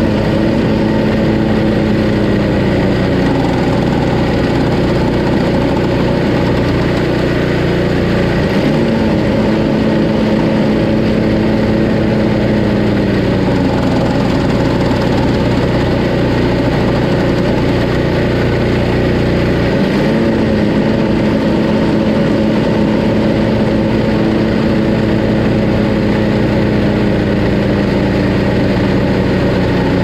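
Tecumseh Snow King 5 hp single-cylinder engine of a Craftsman 522 two-stage snowblower running steadily. The auger drive is engaged and released a few times, the engine note shifting abruptly near the start, about nine seconds in and about twenty seconds in. The brake bar dropping onto the auger pulley still makes the noise and vibration that lubricating it has not cured.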